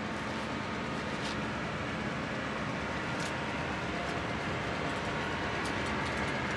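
Steady mechanical hum of running machinery, with a few faint light ticks.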